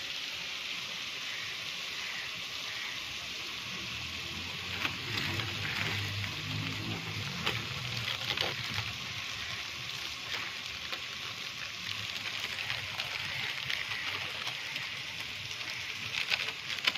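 Steady sizzle of chicken keema frying in a karahi. Over it come scattered crinkles and tears of plastic spice packets being opened and emptied, louder near the end.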